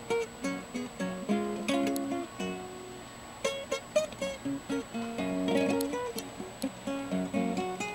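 Hawaiian slack key acoustic guitar played fingerstyle: a steady run of single plucked melody notes over lower notes, each note ringing briefly and fading.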